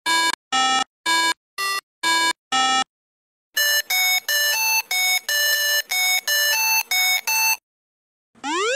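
Video-game-style electronic beeps: a run of short, evenly spaced notes at about two a second, a brief pause, then a quicker run of notes jumping between pitches. A rising electronic sweep comes near the end.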